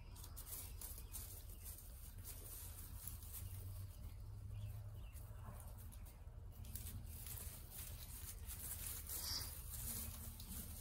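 Faint rustling and light patter of a ewe and her two newborn lambs shifting about in straw bedding as the lambs try to nurse, over a low steady hum.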